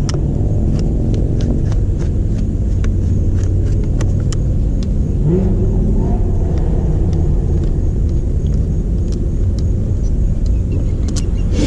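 A motor vehicle engine running with a steady low rumble, its pitch rising once about five seconds in, as if revved. Faint light clicks sound over it.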